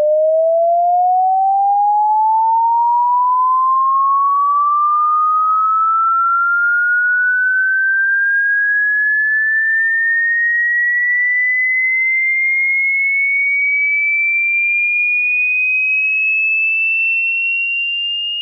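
A pure electronic sine tone sweeping slowly and smoothly upward in pitch, from a mid tone to a high, piercing one. It is loud and steady, easing off slightly near the end.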